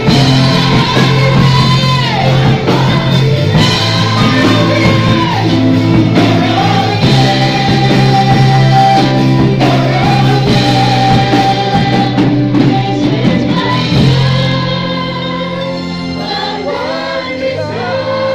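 Live worship band with amplified electric guitars backing a female lead singer. The band gets quieter and softer about fourteen seconds in.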